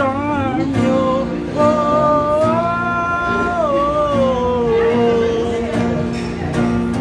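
Background music: a singer over guitar, holding a long note and then sliding down to a lower held note.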